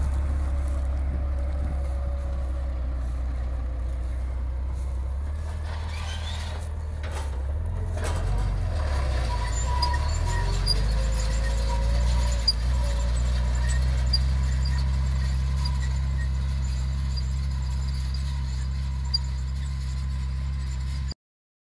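Tractor engine running steadily while pulling a no-till seed drill through a field; its note wavers briefly about eight seconds in. The sound cuts off abruptly just before the end.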